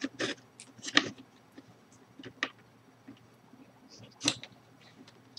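A few separate sharp clicks and knocks, about a second or two apart, from tools and small parts being handled on a workbench.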